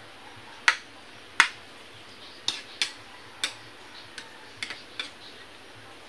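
A metal cooking utensil clicking and knocking against a wok as it stirs, about nine sharp, irregular clicks, the two loudest in the first second and a half.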